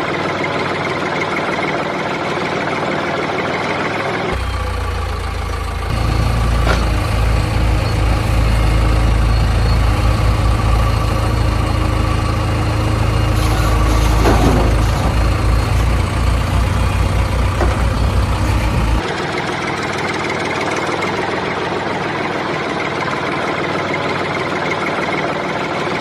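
Vehicle engine running steadily. About four seconds in a louder, deeper engine rumble cuts in abruptly and runs until it cuts out again a little past the middle, with the lighter engine sound before and after.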